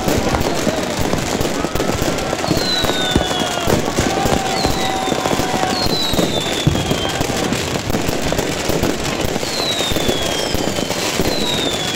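Dense barrage of fireworks and firecrackers: continuous crackling and popping, with several high whistles sliding down in pitch every second or two.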